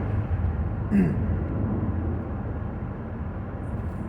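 Steady road and engine rumble heard from inside a moving vehicle's cabin.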